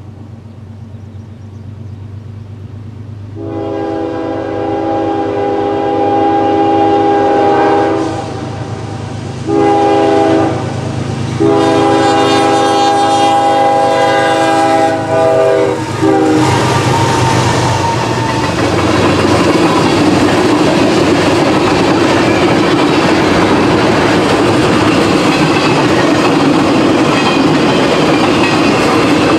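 Locomotive's multi-chime air horn sounding three blasts, long, short and long, as the train approaches. The train then passes close by, with a steady rumble and wheels clicking over the rail joints.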